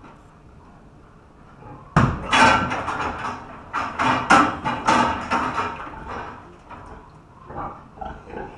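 A sudden burst of loud, rapid knocking and clattering that starts about two seconds in, with several hard bangs over the next four seconds, then dies down to scattered knocks near the end.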